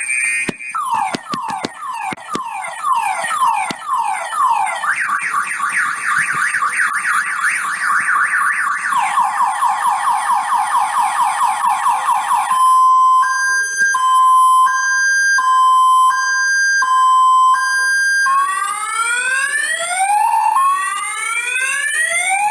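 Car alarm siren cycling through its tone patterns: repeated falling chirps, a faster chirping warble, then a hi-lo two-tone beep about two-thirds of the way in, and rising sweeps near the end.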